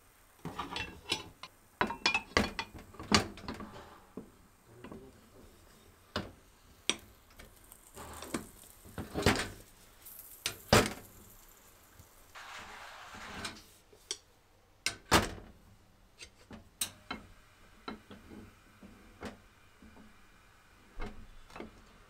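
Metal clicks, clacks and knocks of a two-sided hot sandwich pan being closed and latched and set down on a gas hob's grate, with a short hiss about two thirds of the way through.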